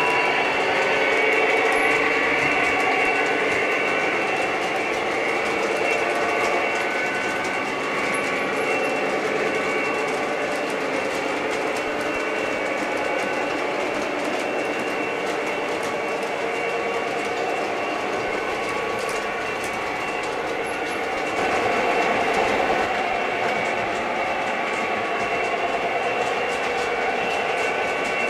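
O gauge model freight train running steadily on three-rail track: the rolling and clicking of its wheels as the hopper cars pass, a little louder about three-quarters of the way through.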